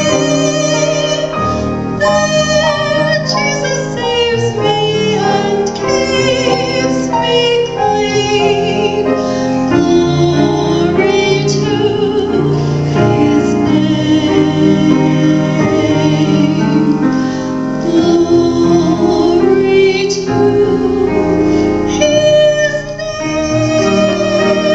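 A woman singing solo with vibrato into a handheld microphone, over piano accompaniment.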